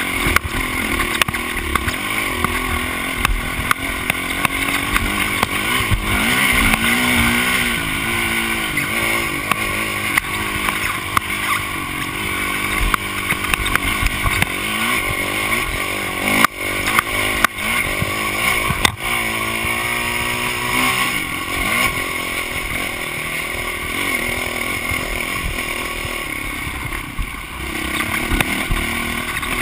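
Honda CRF450X single-cylinder four-stroke dirt bike engine running under load, its revs rising and falling as the throttle opens and closes. A few sharp knocks come through around the middle.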